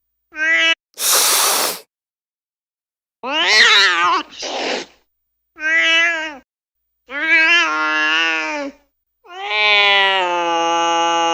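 Angry domestic cats in a string of separate clips: a short meow, then a hiss about a second in, wavering yowls and meows, and a long drawn-out yowl near the end.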